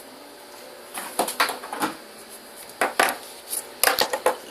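Irregular clicks and light scrapes of hard objects on a tabletop, in a few separate clusters: a folding knife and small paper scraps being handled and cleared away.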